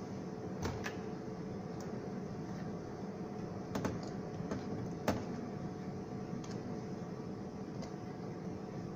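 A few light, sharp clicks of plastic tubing and hose clips being cut and fitted, scattered over the first five seconds, over a faint steady hum.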